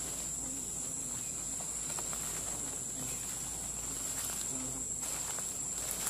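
Steady, high-pitched chorus of insects, an unbroken buzz with no pauses, with a few soft footsteps in grass under it.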